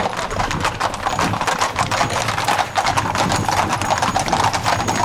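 Hooves of a tight group of Camargue horses clip-clopping on an asphalt road, many hoofbeats overlapping in a dense, irregular clatter.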